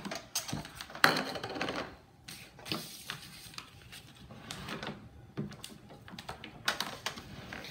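Handling noise: irregular clicks, light knocks and rustling as a rice cooker's power cord is unwound and a plastic-wrapped instruction manual is picked up. The loudest part is a sharp click followed by about a second of rustling, about a second in.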